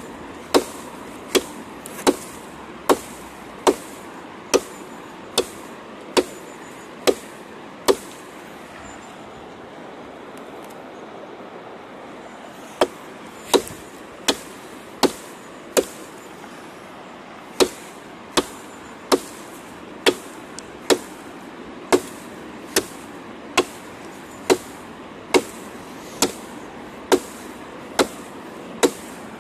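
Koster Survivor knife chopping into a dead log, sharp wooden strikes about every three-quarters of a second, about 25 in all, with a pause of several seconds a third of the way in. A steady rush of river water underneath.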